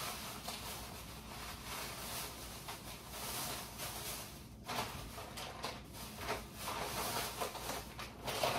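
Irregular rustling and a few light knocks of grocery packages being handled and moved about.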